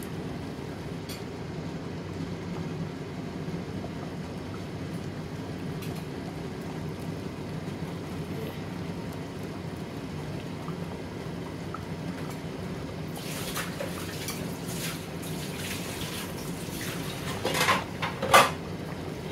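Curry boiling in an open steel pressure-cooker pot, a steady low bubbling throughout. In the last few seconds a run of louder sharp sounds comes through, the loudest just before the end.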